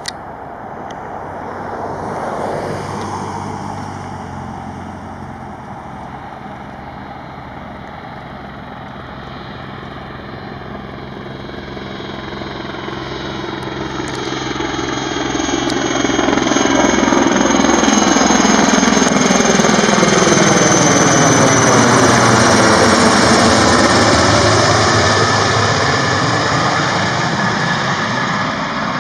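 Sikorsky S-64 Air-Crane heavy-lift helicopter approaching and passing low overhead: turbine whine over the beat of its rotor. It grows steadily louder, is loudest from a little past halfway to near the end, then begins to fade.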